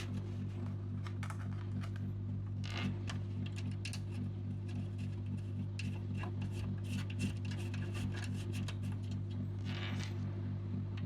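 Many small clicks, taps and scrapes of small hardware being handled, over a steady low electrical hum.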